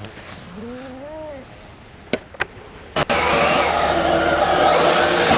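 A 1:5-scale electric RC rally car running hard: the whine of its brushless motor and all-steel gears, with tyres on dry dirt. It starts abruptly and loudly about three seconds in, after a few sharp clicks. Before it comes a soft, bird-like cooing call.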